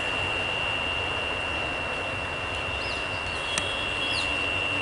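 Steady rushing noise of commuter train coaches rolling away over the level crossing, under a constant high-pitched tone. A single click about three and a half seconds in, and two short chirps near the end.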